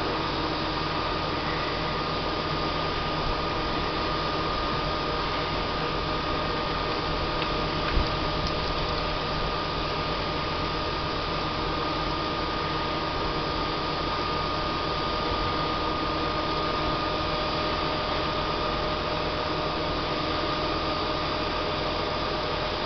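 Hi-rail crane truck running with its National Crane 1300-D hydraulics, a steady mechanical hum with a constant high whine over it, with one short click about eight seconds in.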